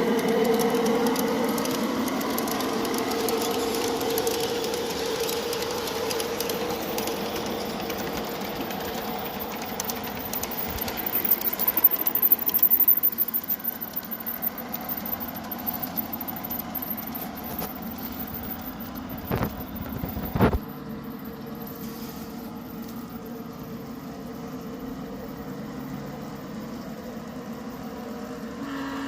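G-scale model freight train running on garden track: a steady motor whine with wheel noise, slowly fading as it pulls away. A run of rattling clicks comes about eleven seconds in, and two sharp knocks near the twenty-second mark.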